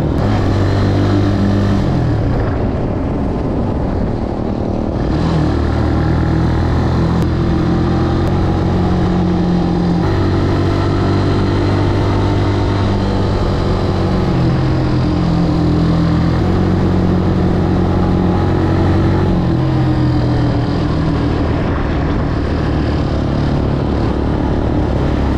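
Italika 200 cc motorcycle engine running under way at road speed, its pitch stepping up and down several times as the revs change.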